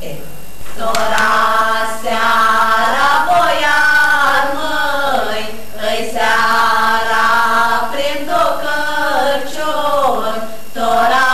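Four young women singing an Aromanian Christmas carol (colind) a cappella. The singing begins just under a second in and goes in phrases of two to three seconds, with short breaks between them.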